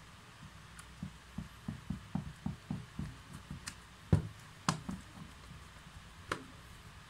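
A screwdriver working screws out of the plastic housing of a ZGO 16 V cordless drill. It makes a run of soft low knocks, about three a second, then a few sharper clicks, the loudest about four seconds in.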